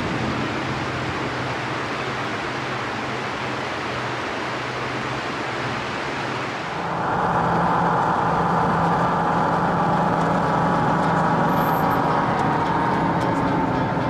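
Vehicle engine running slowly over a steady rush of noise, likely the river water at the bridge. About seven seconds in the sound steps up and turns steadier and louder.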